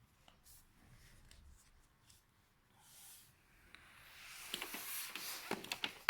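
Faint handling noises: light clicks and taps of small plastic parts, with a hiss building over the last couple of seconds.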